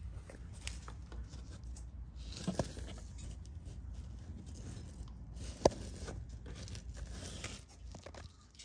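Rustling and scraping handling noise close to the microphone as a handheld camera is moved around, with a few small knocks, the sharpest about five and a half seconds in.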